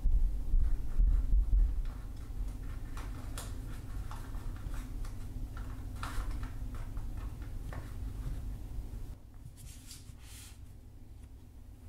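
Folded paper being handled: an origami masu box's lid slid onto its base, with light rustles and taps of paper, then a square sheet laid flat on a table. Low handling thumps in the first two seconds are the loudest part, over a steady low hum that drops about nine seconds in.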